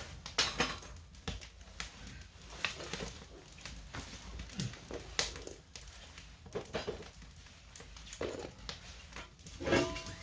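Irregular sharp clicks and knocks, a few a second, some louder than others, with no steady tone.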